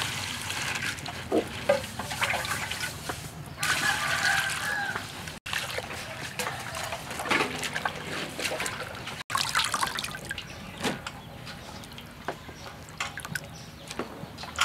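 Water poured into a stainless steel bowl of bean sprouts and hands swishing the sprouts around in the water, with splashing and dripping. The sound breaks off briefly twice where the takes change.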